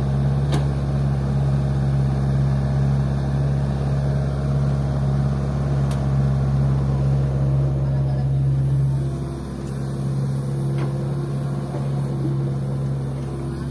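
Diesel engine of an Isuzu Elf dump truck idling steadily close by, while a Hitachi excavator works behind it. From about nine seconds in, a higher steady tone joins the hum as the excavator swings its loaded boom over the truck bed.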